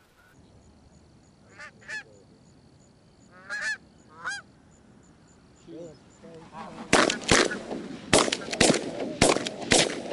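Canada geese honking as a flock passes overhead, a few scattered calls in the first seconds, then a rapid volley of shotgun shots from about seven seconds in, with honking among the shots.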